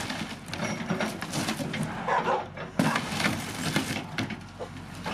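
A loader's bucket pushing through a wooden shed wall: boards and framing cracking and splintering in a run of sharp snaps, with one loud crack a little before three seconds in. The loader's engine runs underneath.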